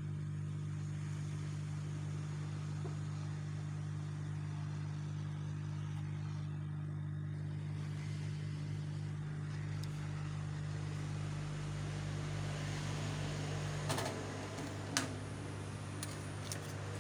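Hand-held hot-air gun running with a steady fan hum, heating a cracked phone screen to loosen it. About fourteen seconds in the hum changes and stops, followed by a couple of sharp clicks.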